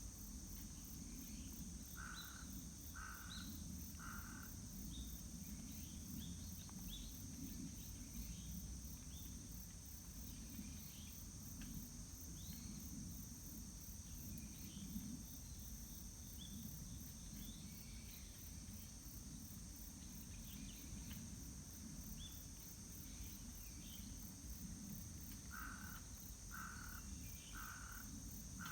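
Quiet outdoor nature ambience: insects chirring steadily with scattered small bird chirps over a low rumble. A bird calls three times, about a second apart, near the start, and four more times near the end.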